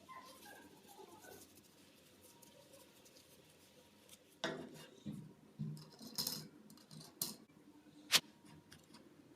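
A series of light knocks and clicks, like objects being handled and set down, with the sharpest click near the end.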